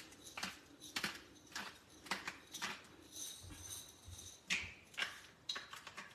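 Glass peppercorn grinder being twisted to crack black pepper, a short crackly grind about every half second, then a few lighter clicks and knocks.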